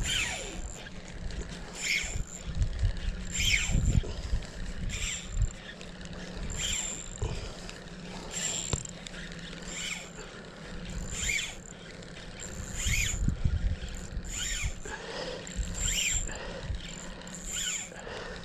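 Spinning reel cranked to retrieve a lure, a short gear whir repeating about once a second, over wind rumbling on the microphone.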